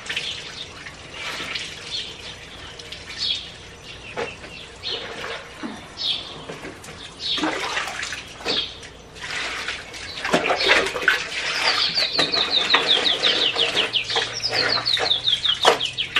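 Water running and splashing at a washing sink as clothes are washed by hand, with irregular rubbing and slapping that gets busier in the second half. A bird's rapid descending trill sounds twice in the second half.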